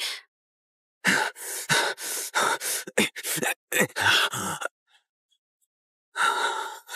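A person gasping and breathing hard in quick, ragged breaths, which stop for about a second and a half and start again near the end.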